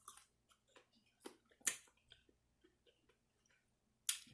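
Mouth eating sounds: chewing with a few short wet clicks and smacks of the lips and tongue, the loudest about a second and a half in and again near the end.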